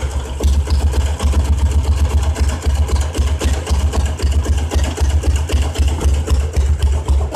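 Old diesel Royal Enfield Bullet's single-cylinder engine idling, its exhaust giving a steady, even low thudding beat.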